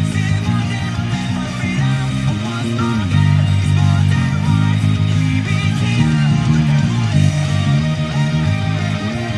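Electric bass played along with a guitar-driven rock track in an instrumental passage with no vocals. The low bass notes are prominent and include a couple of sliding notes.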